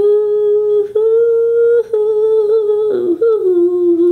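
A woman humming a slow tune in a few long held notes, the last ones a little lower.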